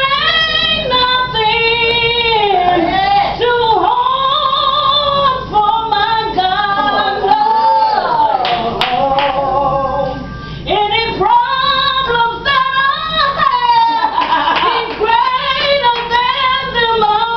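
A woman singing a gospel song in long, wavering held notes and melodic runs, with few clear words.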